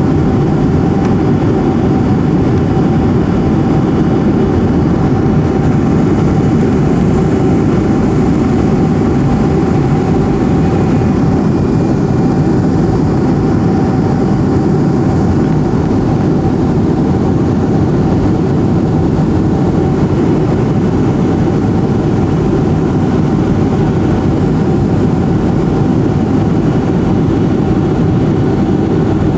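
Steady low roar of an airplane cabin in flight, engine and airflow noise, with a thin steady tone running through it.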